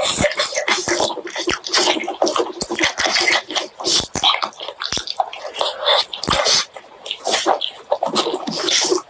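Close-miked eating: wet chewing, lip-smacking and slurping on pork leg curry and rice, a rapid, continuous run of moist clicks and smacks.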